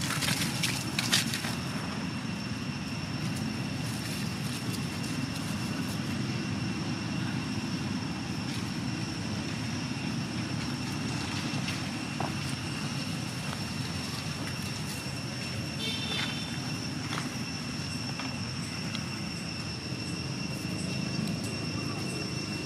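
Steady outdoor low rumble with a constant thin high-pitched whine. In the first second or so, a flurry of sharp scuffling rustles and clicks comes as macaques chase across dry leaves and dirt. Later there is a brief high chirp.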